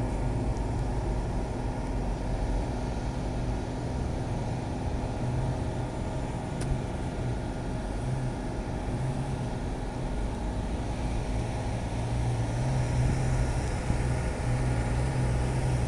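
A truck engine running steadily, a low droning rumble that grows a little louder near the end.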